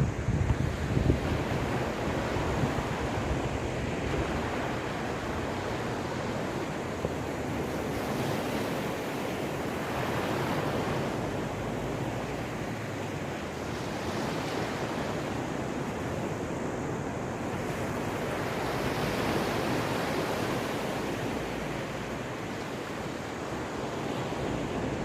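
Sea waves breaking and washing on the shore of the Caspian Sea, rising and falling in slow swells every few seconds, with wind rumbling on the microphone, heaviest in the first couple of seconds.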